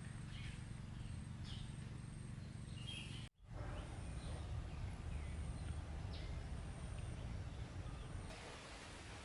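Outdoor ambience: a steady low rumble with faint, scattered bird chirps and a thin, high insect buzz in short repeated pulses. The sound cuts out for an instant about three seconds in.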